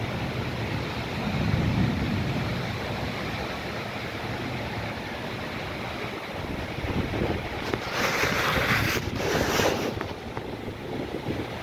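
Heavy rain pouring steadily, with wind gusting against the microphone. A louder hissing surge comes about eight seconds in and lasts about two seconds.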